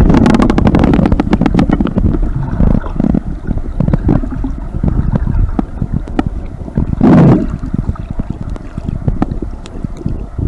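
Camera microphone held under shallow sea water: loud, muffled underwater rumble full of fine crackles and clicks, with one stronger swell about seven seconds in.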